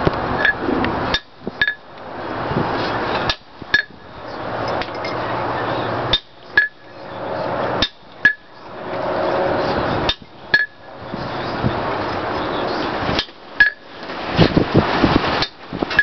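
Hand hammer striking a sharp chisel-type tool to cut vein lines into a hot mild-steel leaf, with single ringing blows spaced a second or more apart.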